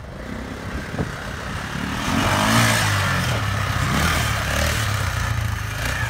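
Kawasaki Bayou KLF400 ATV's single-cylinder four-stroke engine revving under throttle, getting louder about two seconds in and held at higher revs after that.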